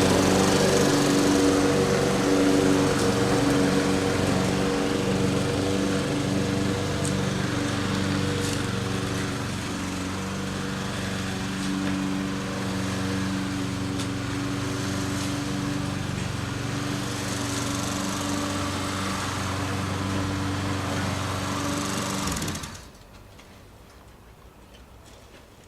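Walk-behind power lawn mower running steadily while cutting grass, its sound slowly fading a little, then stopping suddenly near the end.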